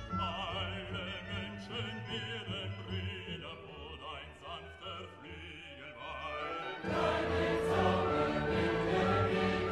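Background music: an operatic voice singing with wide vibrato. About seven seconds in, a louder choral passage with a long held note comes in.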